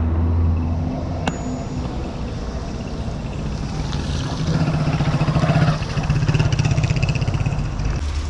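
A vehicle's engine running: its low hum drops about a second in, then climbs to a higher, stronger pitch about four and a half seconds in as it speeds up, with one sharp click just after the first second.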